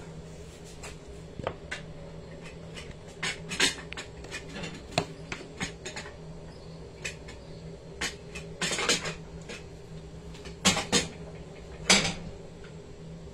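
Irregular knocks, clicks and clatter of kitchen things being handled and set down, with a few louder knocks, over a steady low hum.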